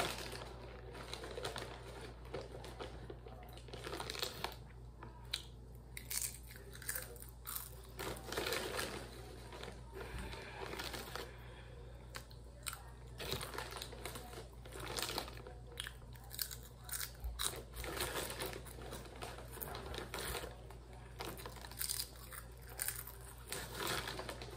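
Potato chips being bitten and chewed, a crisp crunching that comes in irregular bursts every second or so.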